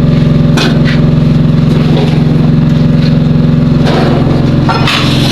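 An engine running steadily at a constant speed, with a few short knocks over it.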